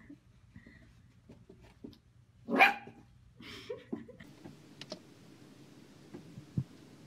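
A small puppy barking at its own reflection in a mirror: one sharp bark about two and a half seconds in, then a quieter one a second later.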